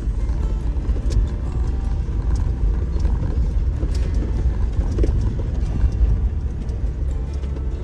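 Off-road vehicle driving slowly over a rough dirt track: a steady low rumble of engine and tyres, with scattered knocks and rattles from the rough ground.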